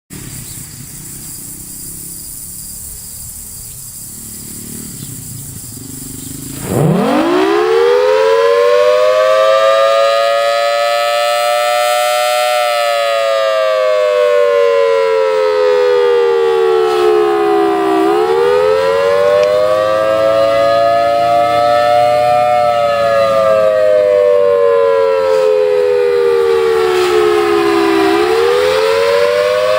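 Federal Signal Thunderbolt 1000 outdoor warning siren starting up about seven seconds in. It winds up quickly into a loud wail whose pitch slowly rises and falls, about once every ten seconds. Its blower has a bad capacitor, which the uploader says lowers its volume.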